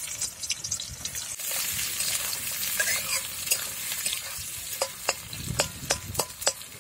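Sliced onions sizzling in hot oil in a metal wok, with a metal spatula scraping and clicking against the pan as they are stirred. The clicks come thick in the second half.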